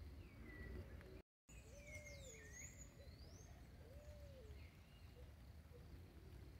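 Faint birdsong: several birds give short whistled calls that slide up or down in pitch, and two lower calls rise and fall about two seconds apart, over a low background rumble. The sound cuts out completely for a moment a little over a second in.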